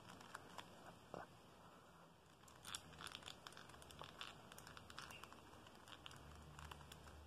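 Near silence with faint, scattered small plastic clicks and scratches: fingers working at the centre cap of a magnetic 3x3 speed cube to pry it off.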